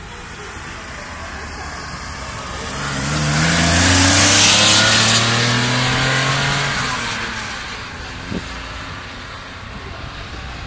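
Classic air-cooled Porsche's rear engine accelerating hard past at close range. The engine note climbs in pitch and swells to its loudest about four seconds in, then fades as the car pulls away up the road.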